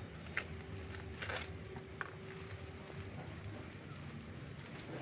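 A few sharp clicks and light rustling from a child's smartwatch and its packaging being handled, over a faint steady hum.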